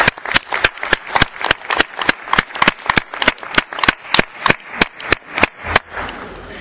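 Applause from a few people in the assembly hall, about three claps a second, fading out near the end.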